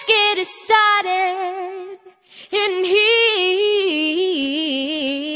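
A girl singing solo with nothing else heard under her voice: a few short notes, a brief break about two seconds in, then a long run of held notes with strong vibrato, stepping down in pitch.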